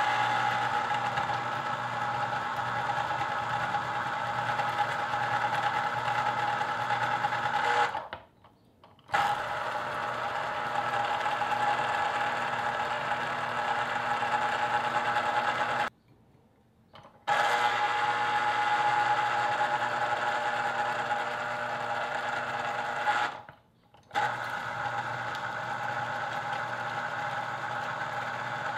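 Cuisinart Pulp Control citrus juicer's electric motor spinning the reamer as lemons are pressed down on it, a steady hum. It cuts out three times for about a second when the pressure on the fruit is lifted, then starts again.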